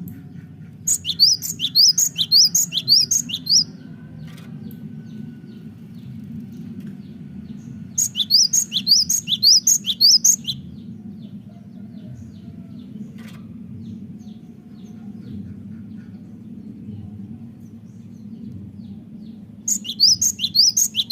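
Cinereous tit (gelatik batuk) singing in three bouts, each a quick run of repeated sharp, high notes lasting two to three seconds, with pauses of several seconds between bouts. A steady low hum runs underneath.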